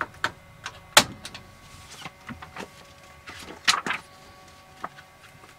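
Scattered light clicks and knocks from handling cookware at a gas stove, with a short rustle and flurry of clicks a little past three seconds in as a cookbook's pages are turned.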